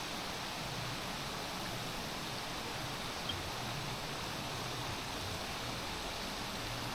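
Steady, even hiss-like outdoor noise with no clear source, and one faint click about three seconds in.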